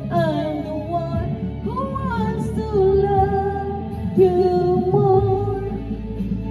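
A woman singing into a handheld microphone over recorded backing music, gliding between notes and holding long notes.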